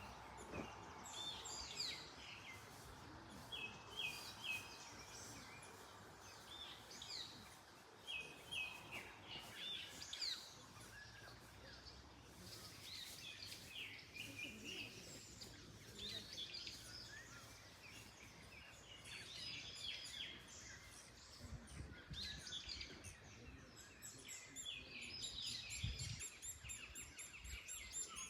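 Several songbirds singing and calling, overlapping short chirps and repeated little phrases, over a soft steady rush of wind in the trees.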